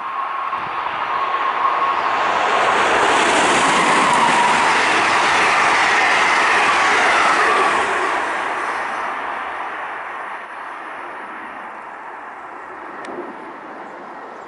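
MARC commuter train, an electric locomotive hauling bilevel coaches, passing at speed: a loud rush of steel wheels on rail that builds, peaks for several seconds, then fades away. A faint whine drops in pitch as the train goes by.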